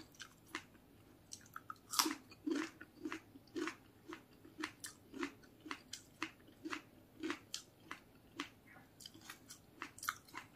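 Close-miked chewing: a person eating a mouthful of food with wet mouth clicks, about two chews a second, a little crunchier and louder around two seconds in.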